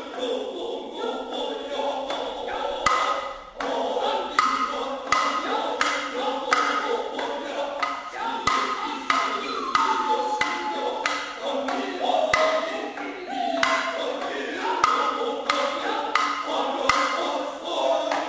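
Noh chanting by voices in unison, cut through by sharp drum strokes about once a second, with a few drawn-out sliding notes about halfway through.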